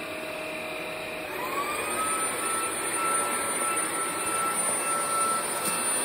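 Ultenic U10 Pro cordless stick vacuum cleaner running on a rug: a steady motor whine with rushing air. About a second in, the whine rises in pitch and gets a little louder, then holds steady.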